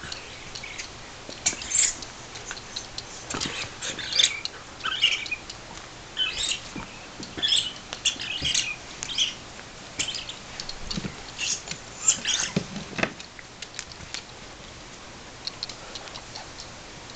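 Squeaky dog toys being chewed, with short high-pitched squeaks in quick irregular clusters. Light taps and scuffles come from the dogs' play.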